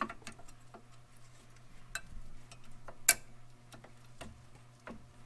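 Metal disc brake pads and their clips clicking and clinking against the caliper bracket as they are seated by hand: scattered light clicks, the sharpest about three seconds in, over a faint steady hum.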